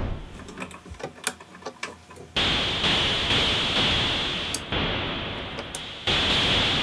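ARP 2600 synthesizer played from its keyboard with a noise patch: swells of filtered hiss, each starting suddenly on a key press and fading slowly, with a bright band high in the range. The first couple of seconds are quieter, with scattered clicks, before the swells come about two and a half seconds in and again three more times.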